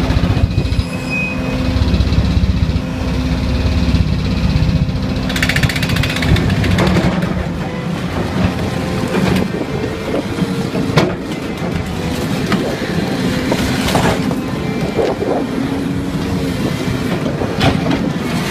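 Excavator-mounted hydraulic vibro ripper hammering into rock: a rapid, continuous vibrating rattle with a steady hum under it, and a few sharp cracks as the rock breaks.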